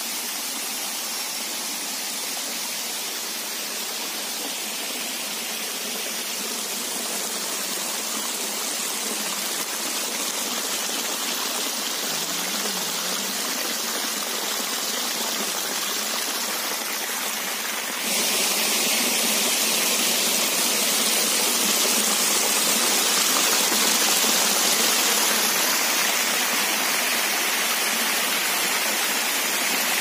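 Waterfall water rushing and splashing down bare rock slabs, a steady dense rush that suddenly gets louder about two-thirds of the way through.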